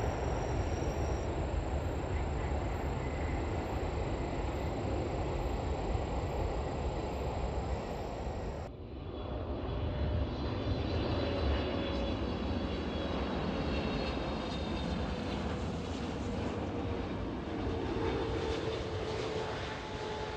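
Jet airliner engines at full power: a Korean Air twin-engine airliner's takeoff roar on the runway. About nine seconds in, a cut brings another jet passing overhead, its engine noise carrying several whining tones over the roar.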